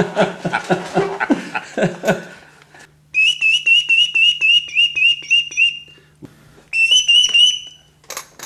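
Men laughing, then a bird call (appeau) blown in a rapid run of short, high chirps, about four a second, for some two and a half seconds. A shorter run follows after a brief pause.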